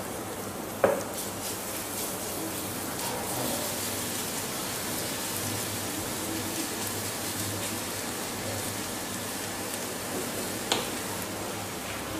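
Freshly chopped garlic sizzling steadily as it fries in hot oil in a nonstick frying pan, still pale and not yet browning. The garlic is being stirred with a plastic spatula, which gives two sharp knocks against the pan, one about a second in and one near the end.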